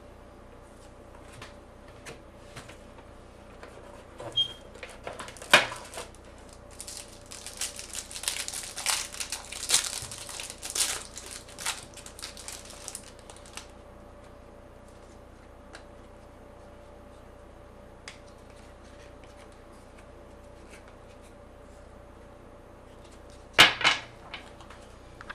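Trading card pack wrapper crinkling and tearing for several seconds, amid scattered clicks and knocks of cards and packaging being handled. Two louder knocks stand out, one before the crinkling and one near the end.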